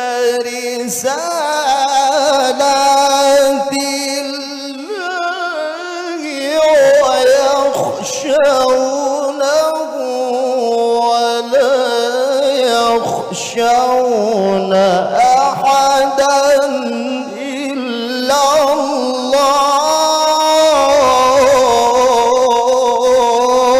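A man's solo melodic Quran recitation (tilawah) into a microphone, long phrases held and ornamented with wavering, sliding pitch, broken by short pauses for breath.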